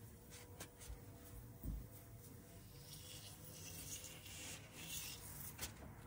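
Faint rustling and rubbing of insulated air-conditioner refrigerant lines being handled, with a few light clicks, a soft thump a little under two seconds in and a longer scratchy rustle in the second half.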